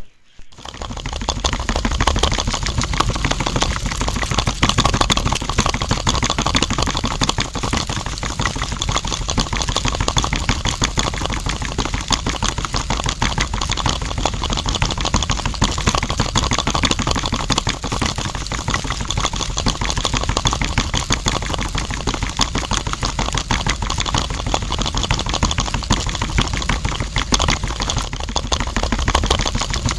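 Small electric motor of a homemade model juice machine spinning a can of water, with a dense, steady rattle. It switches on with a sharp click at the start and is up to speed within about a second.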